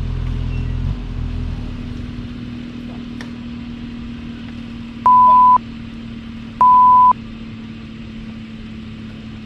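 Mini excavator engine working hard, then dropping to a lower steady run about a second in. Over it, two loud half-second censor bleeps, one pure tone cutting in and out abruptly, cover the operator's swearing.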